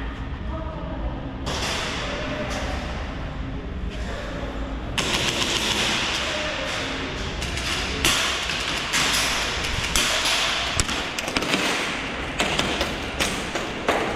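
Airsoft guns firing during a skirmish: a dense run of rapid shots starting about five seconds in, then scattered sharp shots and clicks.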